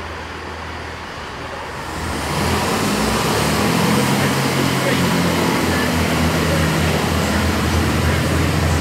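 Class 165 diesel multiple unit pulling away: about two seconds in its underfloor Perkins diesel engines open up and a loud low engine hum holds as the train departs.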